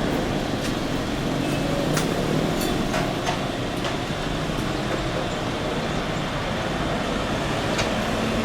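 Airliner jet engines running, heard as a steady, even rumble with a few faint clicks.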